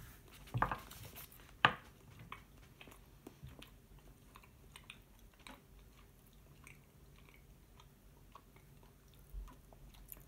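A person chewing a bite of soft, white-rinded Neufchâtel cheese: faint, irregular small mouth clicks. Two sharper, louder clicks come in the first two seconds.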